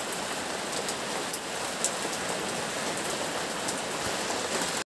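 Steady rain falling, an even hiss with a few sharp drop ticks, cutting off suddenly near the end.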